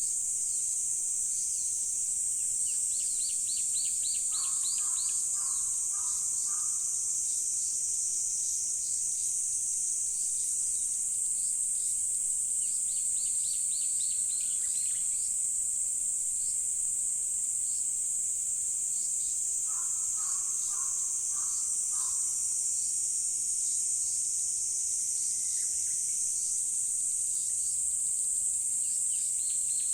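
Steady high-pitched chorus of insects, with a bird calling twice in short runs of repeated notes, about four seconds in and again about twenty seconds in. Higher, quick chirping notes come through now and then.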